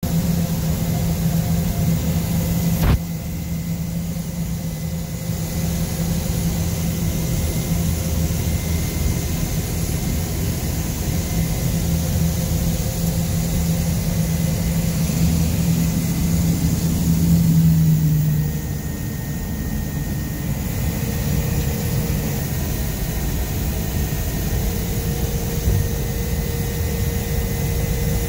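Engine drone of a small high-wing passenger plane heard inside its cabin, a steady hum. The hum eases off a little about 18 seconds in, and there is a single sharp click near the start.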